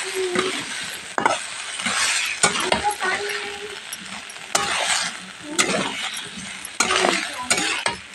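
Metal spatula scraping around a steel kadhai as a potato and onion curry is stirred, with repeated scrapes about once a second over the curry's steady sizzle, a little water having just been added.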